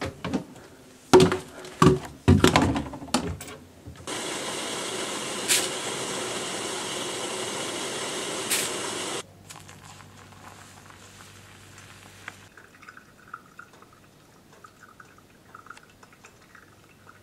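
A few knocks and clatters, then water running steadily for about five seconds before it cuts off suddenly. After that a faint low hum and soft irregular dripping and ticking from wet coffee grounds in a paper filter cone.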